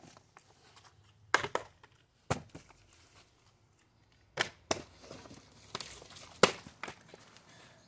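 A partly filled plastic water bottle knocking sharply as it is flipped, lands and is picked up: a string of short, irregularly spaced hard knocks.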